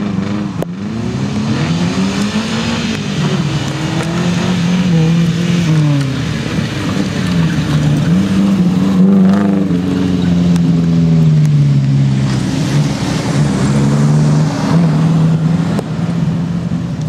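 Engines of off-road 4x4 rally vehicles revving hard under load, their pitch climbing and dropping again and again with throttle and gear changes.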